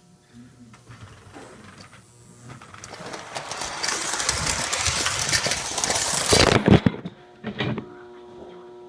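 Lionel toy electric train running on its track, growing louder and rattling over a few seconds, then a short burst of clattering knocks about seven seconds in as the train derails. A steady electrical hum remains afterwards.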